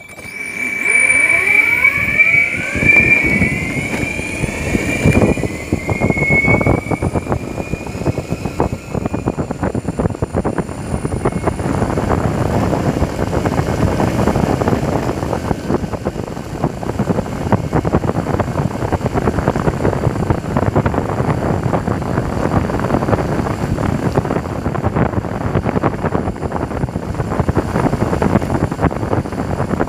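Raptor 1 electric skateboard's dual belt-driven motors whining and rising in pitch as it accelerates hard from a standstill at full throttle. After about eight seconds the whine levels off and a steady rushing noise of wheels and wind takes over at full speed.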